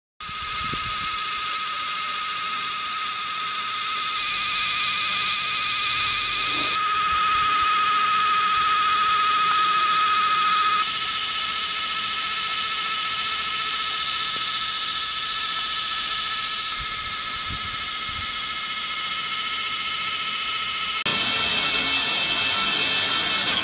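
Small N20 DC motor whining steadily as it spins a twelve-blade cardboard model radiator fan on its pulley. The high tone holds steady, shifting slightly in pitch and level several times.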